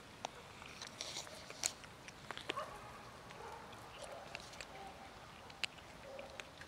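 Several cats crunching dry kibble from a metal tray: irregular crisp crunches and clicks, some louder than others.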